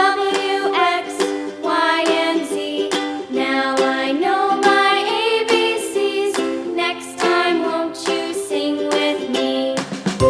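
Background music: a tune on plucked strings, with chords struck in quick succession under a melody line.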